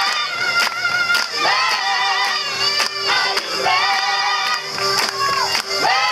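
Mixed choir of men and women singing together in full voice, with steady hand claps on the beat.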